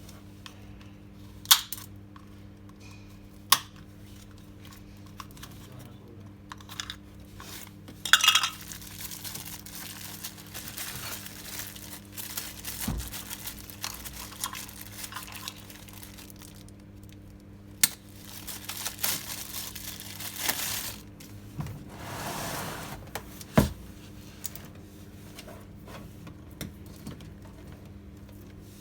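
Hands working on a washing machine's parts during a timer replacement: a few sharp clicks and knocks of plastic and metal, with stretches of rustling and scraping, over a faint steady hum.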